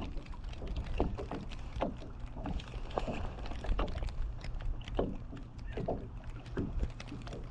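Scattered light knocks and clicks of fishing gear in a small boat over a steady low rumble.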